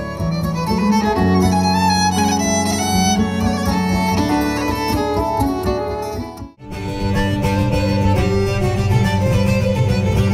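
Live Nordic folk music from a violin, keyboard and guitar trio, the violin carrying the melody over held chords. About six and a half seconds in the music cuts out for a moment and a livelier tune begins, with violin and accordion over steadily strummed guitar.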